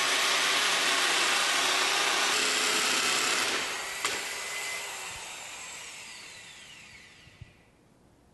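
Corded power drill boring into a concrete cinder block wall: loud and steady for about three and a half seconds, then fading out with a falling whine as the motor winds down.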